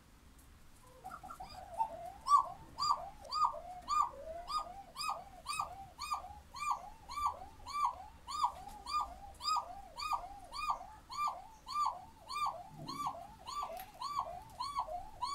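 A Sivas dove (Sivas kumrusu) calling: a long unbroken run of quick coos, each note rising and falling, about two a second, starting about a second in.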